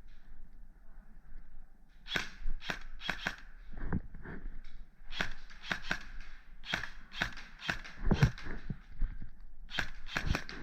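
Airsoft guns firing: strings of sharp, quick snaps in three clusters, with a few low thuds between them.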